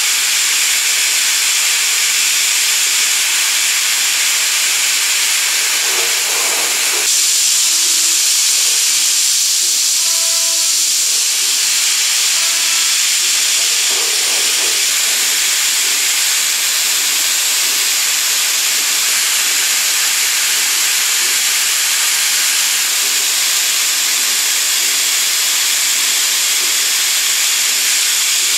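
Coolant spraying with a steady, loud hiss inside a Brother Speedio M300X3 multi-tasking machine as it machines a metal part. A few faint short tones come through between about six and fifteen seconds in, and the hiss turns a little brighter about seven seconds in.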